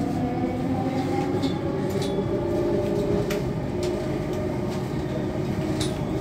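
Delhi Metro train running, heard from inside the carriage: a steady low rumble with a constant motor hum and a few faint clicks.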